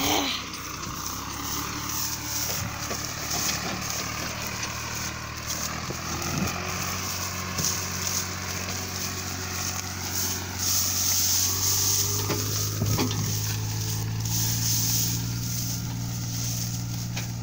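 Swaraj 735 tractor's diesel engine running steadily under load, with a steady hiss over it. The engine hum grows louder about twelve seconds in, and there are a couple of short knocks.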